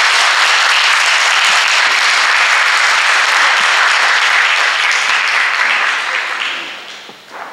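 Audience applauding steadily, dying away over the last two seconds.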